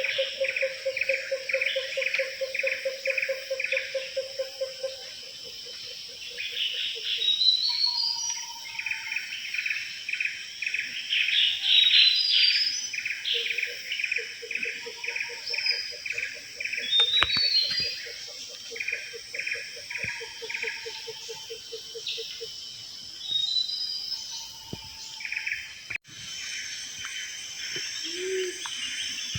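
Tropical rainforest chorus of birds and insects. A short note repeats about twice a second over rising whistled phrases, with a low pulsing trill that fades out.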